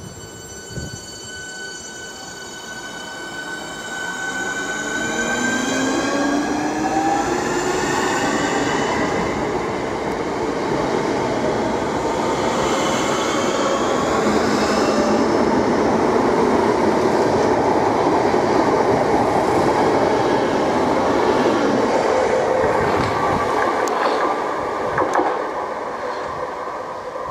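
Class 465 Networker electric multiple unit pulling away, its traction motors giving several whines that rise steadily in pitch as it accelerates. It then runs past close by with a loud, steady rumble of wheels on rail, which fades near the end.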